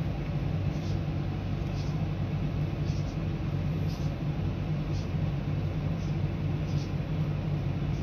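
Steady low hum, with faint soft clicks about once a second.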